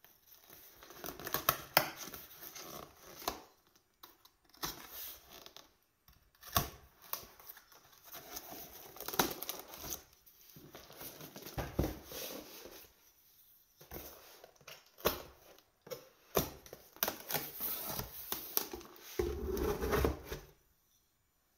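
A blade slitting packing tape along the seams of a cardboard box, with tape tearing away, cardboard scraping and clicking, and the flaps being pulled open, in irregular bursts. A denser rustle of cardboard and bubble wrap comes near the end as the box is opened.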